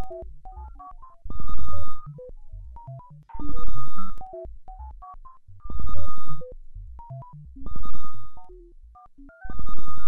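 Electronic background music in a looping pattern: a loud held synth chord over heavy bass about every two seconds, with quieter runs of short plucked notes between.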